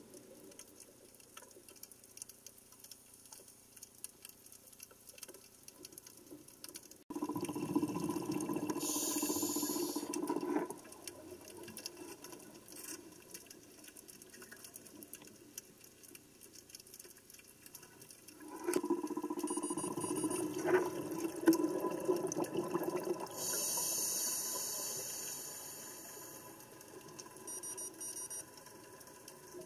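Underwater recording: a scuba diver's exhaled bubbles burbling in two long bursts, about seven and about eighteen seconds in, with faint clicking in the quieter stretches between.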